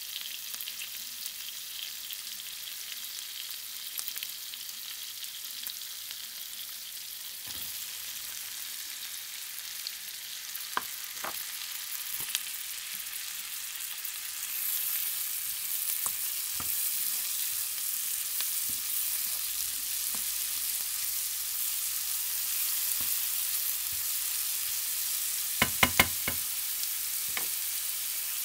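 Diced onion and chopped mushrooms sizzling in hot fat in a frying pan, a steady hiss that grows a little louder about halfway through. A wooden spatula knocks against the pan now and then, loudest in a quick run of three near the end.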